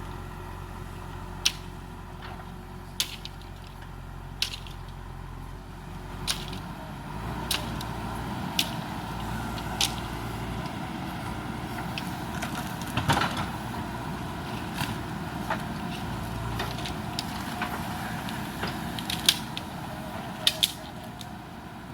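JCB backhoe loader's diesel engine running steadily and getting louder about seven seconds in. Sharp cracks and knocks sound over it about a dozen times as the machine works.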